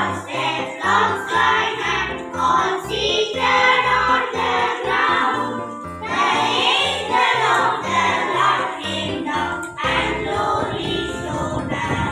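Children's choir singing a song over an instrumental accompaniment with a steady, stepping bass line.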